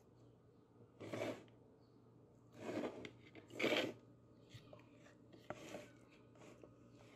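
Metal spoon scraping thick almond butter off the sides of a plastic food-processor bowl. Three scrapes come in the first four seconds, then a few light clicks and taps.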